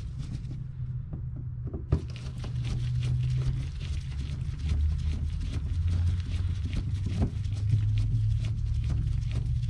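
Low background music with a steady bass that changes note a few times, over light clicking and scraping of a screwdriver tip working plastic push clips in a wheel-well liner, with one sharp click about two seconds in.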